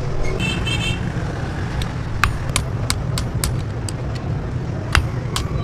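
Hand hammer striking a hot steel bearing ring on an anvil, a string of sharp, uneven blows from about two seconds in. A steady low rumble runs underneath, and a brief high-pitched tone sounds near the start.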